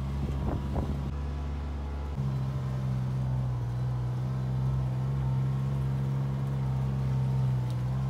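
Engine of a side-by-side off-road vehicle driving through snow: a steady low drone that shifts to a slightly different note about two seconds in.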